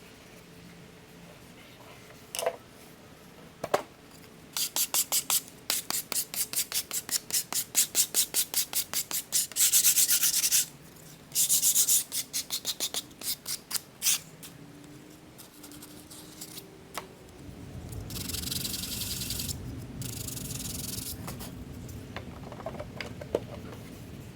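Hand sanding of wood: quick back-and-forth strokes of sandpaper, about three a second, from a few seconds in, then a few seconds of steadier rubbing near the end.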